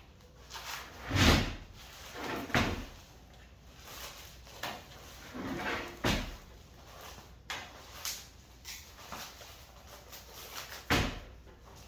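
Cardboard box and packing being handled and pulled apart: scattered knocks and thumps, about five of them louder, with rustling between.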